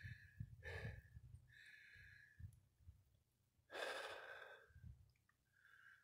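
Faint breathing of a man climbing a steep rocky slope: several soft breaths, with a louder one about four seconds in.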